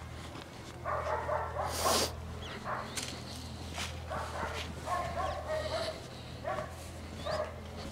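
A dog barking and yelping in short calls, about six times, with a brief rustle about two seconds in.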